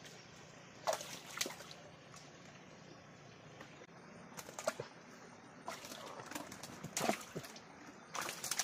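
Water splashing and sloshing in a handful of short, irregular bursts: about a second in, a cluster around four to five seconds, again near seven seconds, and near the end.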